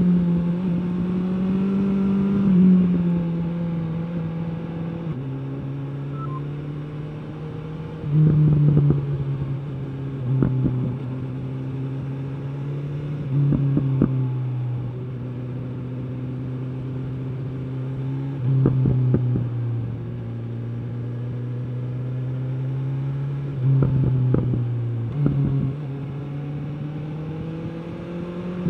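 Stock exhaust of a 2021 BMW S 1000 R's inline-four running at low revs, with its pitch stepping down and up. About six short blips of the throttle break in, each with a cluster of exhaust pops and crackles.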